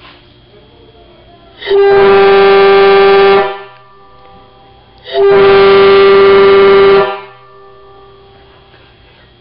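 Homemade PVC air horn (train horn) sounding two steady, loud blasts of about two seconds each, the second starting about three and a half seconds after the first.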